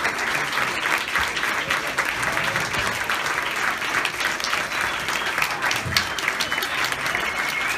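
Audience applauding steadily: many hands clapping together without a break.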